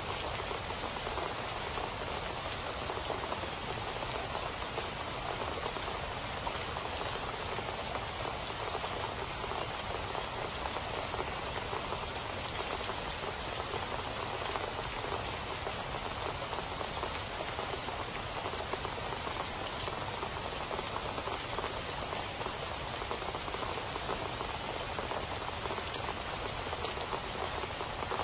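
Steady rainfall: an even, unbroken patter of many drops with no breaks or changes.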